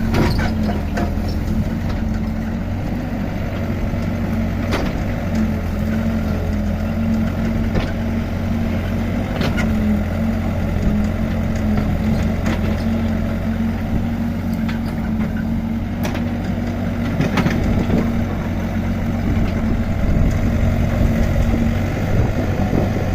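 Excavator's diesel engine running steadily, with a handful of sharp knocks spread through.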